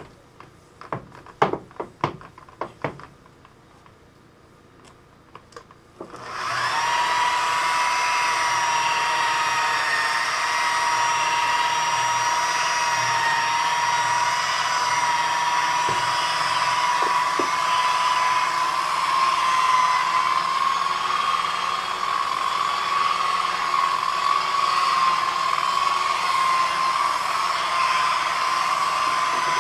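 A few clicks and knocks of handling, then about six seconds in an electric polisher with a bonnet pad starts up and runs steadily with a high whine, buffing rubbing compound into sanded latex paint.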